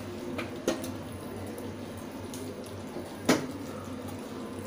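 A spatula stirring chili cauliflower in a kadai on a gas stove, with light clicks and scrapes and one sharp knock a little past three seconds in, over a steady low hiss.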